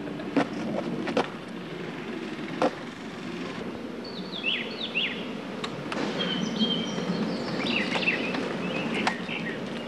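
Three sharp knocks in the first three seconds as a long-handled hammer strikes a cardboard box on asphalt. From about four seconds in, songbirds chirping in short, falling calls, with a few faint clicks.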